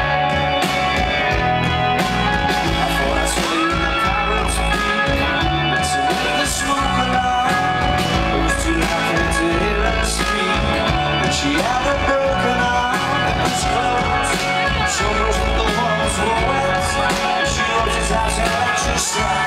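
Rock band playing live: electric guitars, bass and drums with steady cymbal hits, and sung vocals in places.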